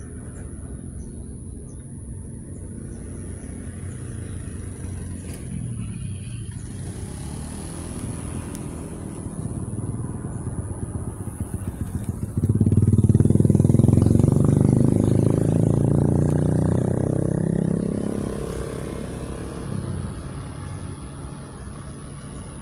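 Motor vehicle engine running, low and steady at first, then much louder about halfway through, falling in pitch and fading away over the next several seconds as it passes.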